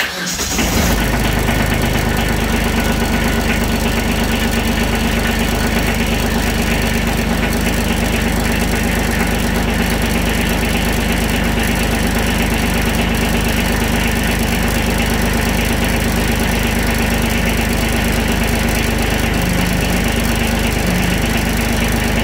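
Kubota B2320 tractor's three-cylinder diesel engine cold-starting after glow-plug preheat on a 40° day. It cranks briefly and catches within about a second, then settles into a steady idle.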